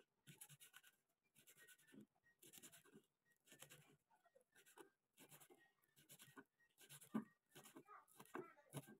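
Knife slicing fresh red chilies on a wooden cutting board: faint, short cutting strokes, about one or two a second, with brief pauses.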